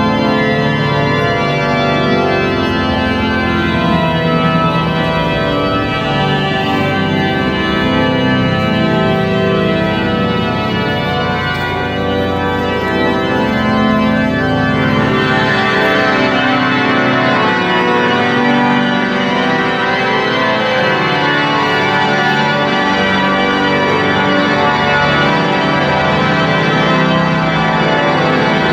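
The great pipe organ of Notre-Dame de Paris playing loud, full sustained chords. About halfway through, the texture turns busier and denser.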